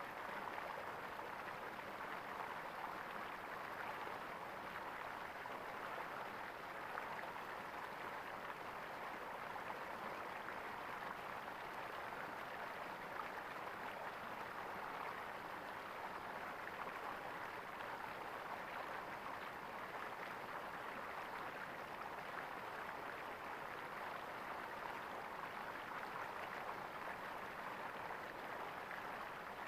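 Small stream of water gurgling and splashing steadily over stones, an even burble with no pauses.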